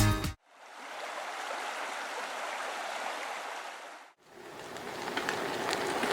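Music cuts off at the start, then a steady rushing of flowing water runs for about three and a half seconds and breaks off. A second outdoor ambience with faint ticks fades in near the end.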